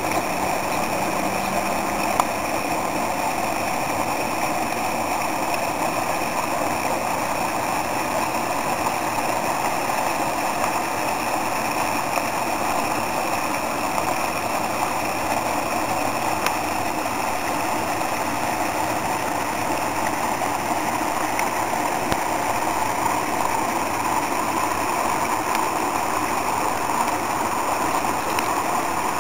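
Water pouring over a small rock waterfall into a stream: a steady, even rush.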